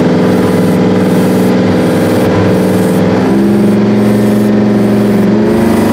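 Detroit Diesel 12V92 two-stroke V12 diesel of the Rite 750 Earthquake tractor running loud and steady under plowing load, heard from inside the cab. About three seconds in, its pitch drops and it holds a lower note.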